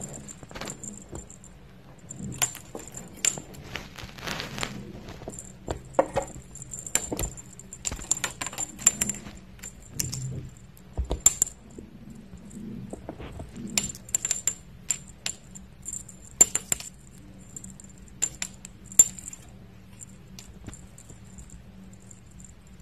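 Irregular light metallic jingling and clicking, in scattered clusters, over a faint low steady hum.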